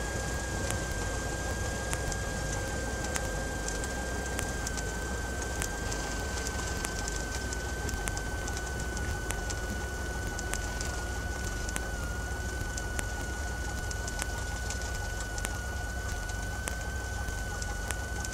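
Steady drone of a Cessna 172M's four-cylinder Lycoming engine in flight: a low hum with a single high whine that slowly sinks in pitch, and scattered faint clicks.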